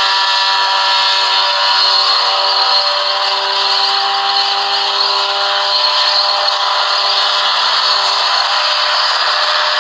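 Single-seat ultralight helicopter lifting off and hovering, its engine and rotor running with a steady, even note.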